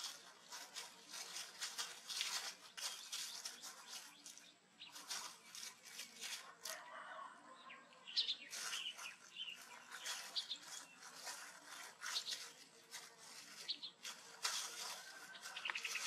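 Baby monkeys handling and eating fried egg and rice on a woven mat: repeated soft rustles and crackles, with a few brief high chirps from about halfway through and near the end.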